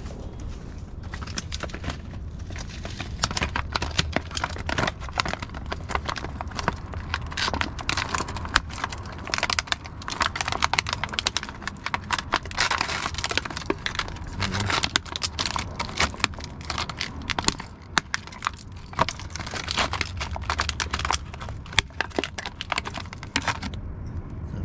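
Plastic packaging crinkling and crackling while it is handled and opened, a dense run of small sharp crackles and clicks.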